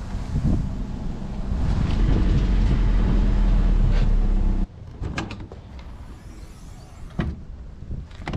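Nissan 240SX (S13) hatchback's engine and exhaust running as the car drives by, a steady low rumble that cuts off abruptly about halfway through. A few light knocks and clatters follow as the hatch's cargo cover over the roll-cage tubes is handled.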